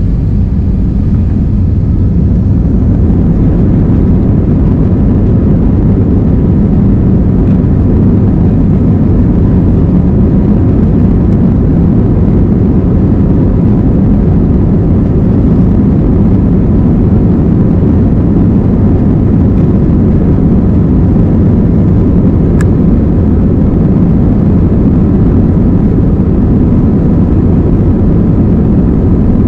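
Jet airliner engines at high power heard from inside the passenger cabin: a loud, steady rumble with a faint steady whine above it.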